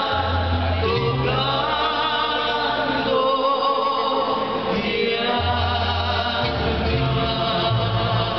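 Mariachi band playing a song, with several voices singing together over a bass line that moves from note to note.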